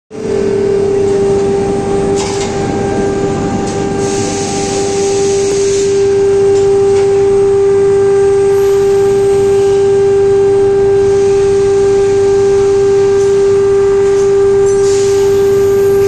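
Large induction melting furnace running with a steady, mid-pitched electrical hum carrying overtones, over a continuous rushing noise from the molten metal bath. Louder spells of hiss come from about two to six seconds in and again near the end.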